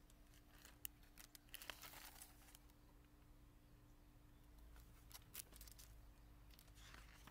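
Faint rustling and crackling of a picture book's paper pages being handled and held up, a few light crackles clustered near the start and again past the middle, over a faint steady hum.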